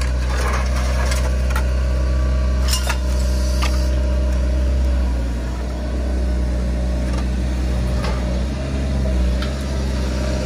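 Hyundai HX160L excavator's diesel engine running steadily under hydraulic load while the magnet attachment lifts scrap metal out of debris, with a steady high whine over it until about halfway. Several sharp metal clanks and knocks in the first four seconds as the scrap is picked up.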